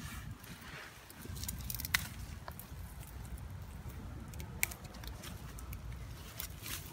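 Dry straw, grass stems and weeds rustling and crackling as a hooked frog is pulled free from tangled vegetation by hand, with a couple of sharper snaps about two seconds in and near five seconds, over a low rumble.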